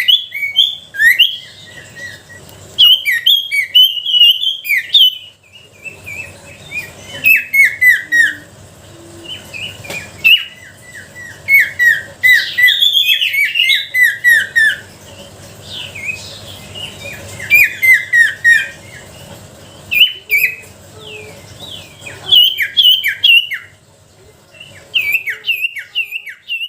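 Sirtu songbird singing: loud, rapid phrases of short, sharp down-sweeping chirps, delivered in bursts separated by brief pauses.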